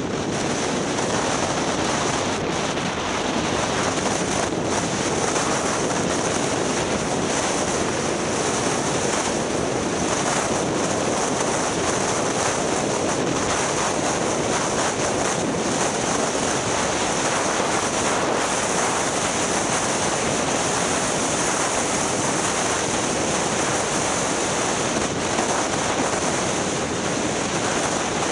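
Steady rushing of wind over the helmet camera's microphone, mixed with skis hissing over groomed snow during a downhill run.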